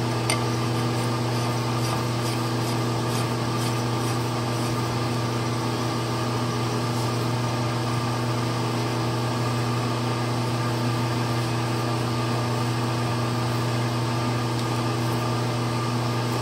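Steady electric machine hum in a machine shop, even and unchanging, with a few faint light ticks over it.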